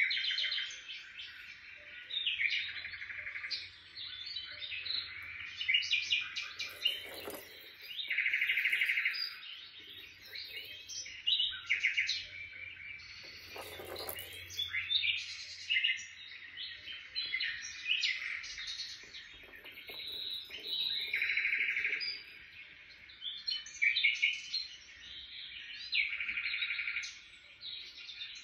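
Birds chirping and trilling: many quick calls overlapping, with louder trills every few seconds.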